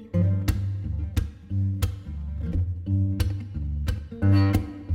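Background music: plucked acoustic guitar with a bass line and a steady beat.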